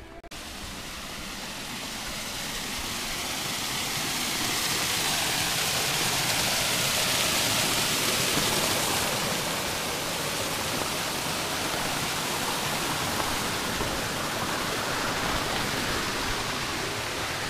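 Water rushing and splashing down a small concrete weir in a levada irrigation channel. A steady rush that swells to its loudest about eight seconds in, then eases slightly.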